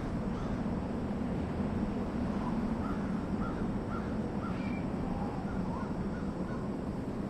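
Steady low rumble of outdoor ambience, with a bird calling in a quick series of short, repeated notes in the middle and a few more calls near the end.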